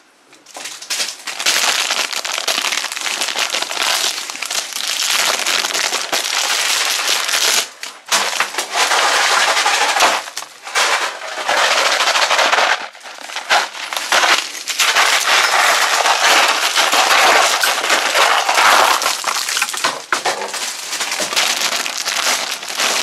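A pile of wrapped candy being stirred and poured by hand. Plastic wrappers crinkle and crackle and pieces clatter against each other in a dense, continuous rattle, broken by a few short pauses.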